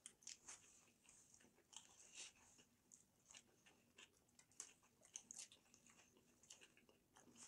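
Faint chewing of two people eating burgers quickly: soft, irregular mouth smacks and clicks, several a second.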